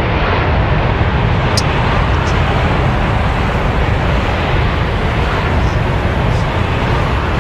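Steady, loud roar of jet aircraft engines running on the ground.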